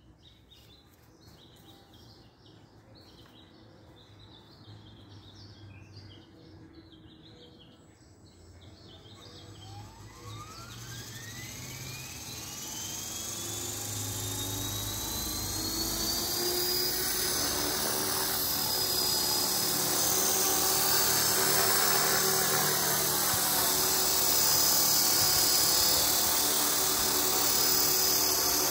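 Esky Belt CP 450-size electric RC helicopter spooling up. After several quiet seconds, a motor whine starts about ten seconds in and climbs steadily in pitch as it gets louder. It then holds steady with the rotor noise of the Align carbon main blades at speed as the helicopter lifts off near the end.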